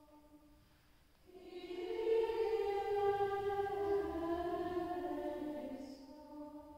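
Nuns' choir of women's voices singing a slow liturgical chant in long held notes. The singing enters loudly about a second in and fades near the end.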